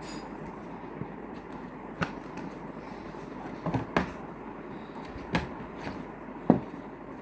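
Board game pieces and box parts being handled and set down on a surface: about five sharp knocks and taps, the loudest near the end, over a steady background hiss.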